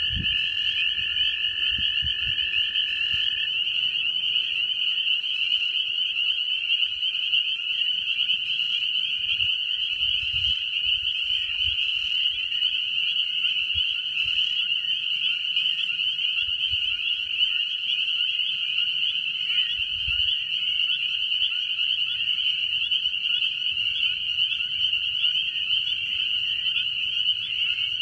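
Dense chorus of frogs and toads calling from a pond: a continuous, shimmering high-pitched trilling. One steady, lower-pitched trill stops a few seconds in.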